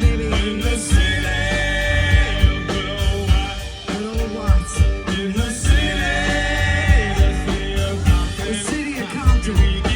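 Live band playing an upbeat groove: a steady heavy kick drum and bass under a gliding melodic lead line, with no words.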